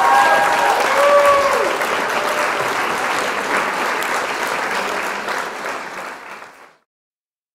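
Crowd applauding, with a few raised voices calling out over it in the first two seconds, fading out near the end.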